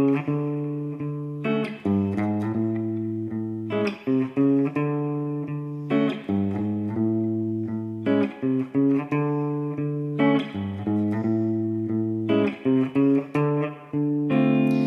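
Instrumental intro on guitar: a picked pattern of notes over low held notes, the same phrase repeating about every two seconds.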